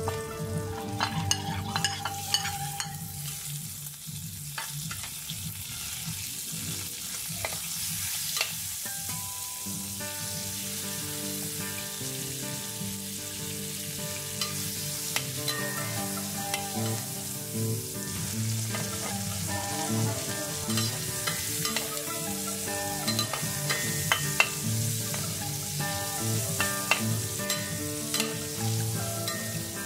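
Meat and liver pieces sizzling in oil in a frying pan, stirred with a metal slotted spatula that scrapes and clicks against the pan, over soft background music.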